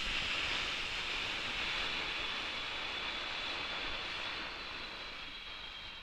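Long exhale sound effect for the breathing-out phase of a 4-7-8 breathing exercise: a breathy rush that starts abruptly and slowly fades.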